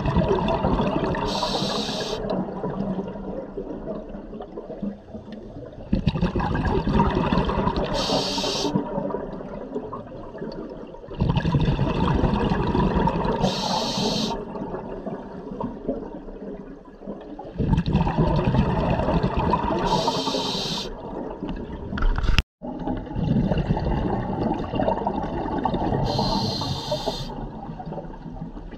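Scuba diver's breathing through a regulator, heard underwater: a rush of exhaled bubbles about every six seconds, each breath with a short high hiss.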